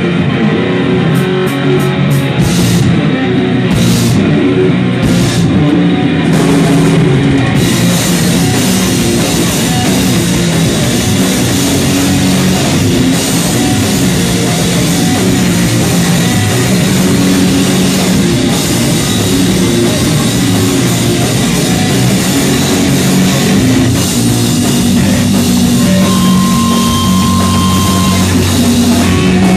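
Rock band playing live at full volume: electric guitar and drum kit going without a break.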